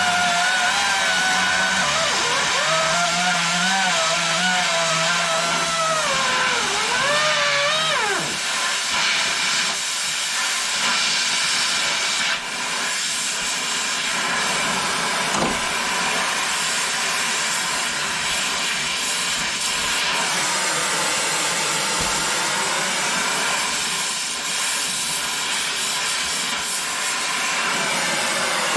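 A worn, partly melted Harbor Freight air angle grinder runs flat out on compressed air with a loud rushing hiss. Over the first eight seconds a whine rides on top and wavers up and down in pitch, then the sound settles into a steadier hiss.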